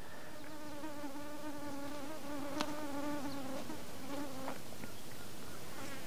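A flying insect buzzing close by: a steady hum that wavers slightly in pitch and stops about four and a half seconds in, with one short tick partway through, over a faint steady hiss.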